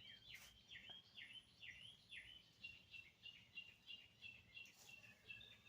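Faint bird song: a series of downslurred whistled notes, then a quicker run of short, even chirps that goes on to near the end.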